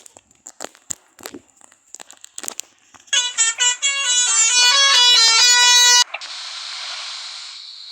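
Basuri 'telolet' multi-tone bus horn playing a short melody of changing notes for about three seconds, about three seconds in. Before it comes a run of scattered clicks, and after it a steady hiss that slowly fades.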